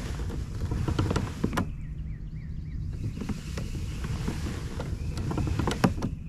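Steady low wind rumble on the microphone with scattered clicks and knocks from the kayak and fishing gear. A short wavering high tone sounds about two seconds in.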